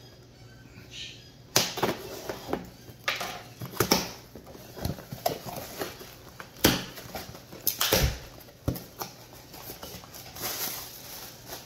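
Cardboard shipping box and plastic wrapping handled and torn open by hand: irregular rustling, crinkling and tearing with several sharp knocks, the loudest about 1.5, 4, 6.5 and 8 seconds in.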